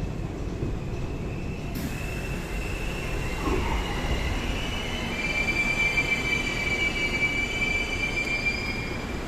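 Interior of a Seoul Line 4 subway car running, its low rumble joined about two seconds in by a high-pitched squeal from the steel wheels against the rail, which grows louder and stronger in the second half and then eases near the end.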